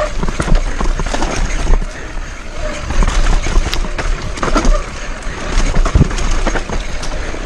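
Downhill mountain bike ridden fast over a rough dirt trail: a steady rush of tyre and wind noise on the bike-mounted camera, broken by frequent sharp knocks and rattles as the wheels and suspension hit roots and bumps. The bike's rear hub is failing.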